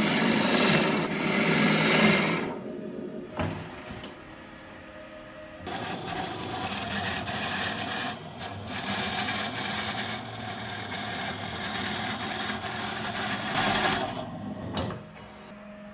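Tool cutting into a spinning wood blank on a lathe, a rough shearing noise as shavings fly off. The cutting stops about two and a half seconds in, starts again about three seconds later with a hollowing tool working inside the opening, and stops near the end, leaving the lathe's steady hum.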